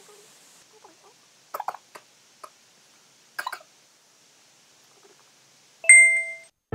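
A few soft knocks and rustles, then about six seconds in a single bright ding, a short ringing tone that fades within about half a second: an editing sound effect marking the start of a segment.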